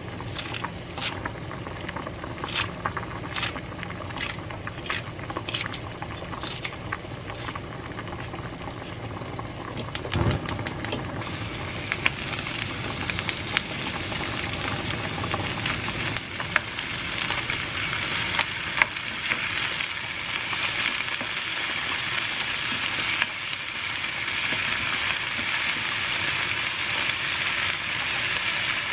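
Kitchen scissors snipping green onion into a wok, a string of sharp snips with a dull thump about ten seconds in. Then oil sizzles steadily as the green onion and tuna fry in the wok, the sizzle growing louder toward the end.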